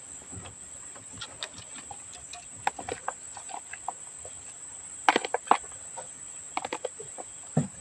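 Scattered small clicks, taps and rustles of someone eating with a spoon from a plastic bag of food, clustered in a few short runs. Behind them runs a steady high insect drone.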